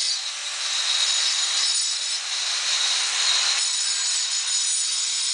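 Rasping, scraping noise in a few long strokes.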